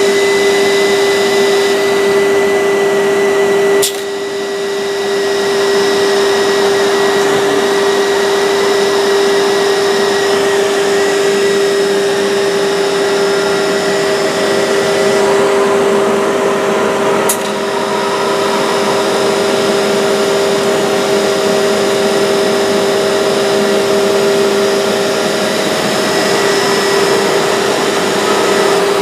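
A woodworking machine running steadily, its motor giving a constant whine over loud mechanical noise, with abrupt breaks about four seconds in and again about seventeen seconds in.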